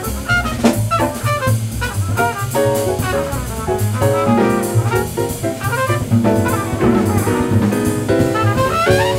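Live small-group jazz: a trumpet plays the lead line over piano, double bass and drum kit.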